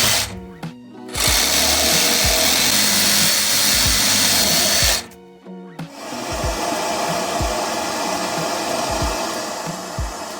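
Music with a steady beat, with a loud noisy whir over it that cuts out briefly twice: about half a second in and about five seconds in.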